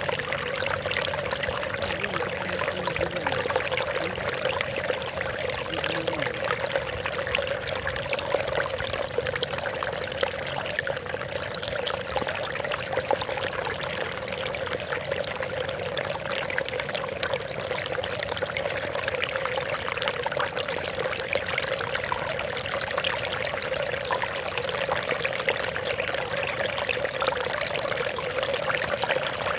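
Water trickling and splashing in a steady, unbroken stream.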